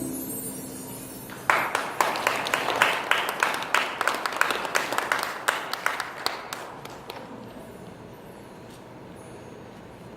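A small audience applauding after a song: clapping starts suddenly about a second and a half in, carries on for about five seconds and tapers away into low room noise.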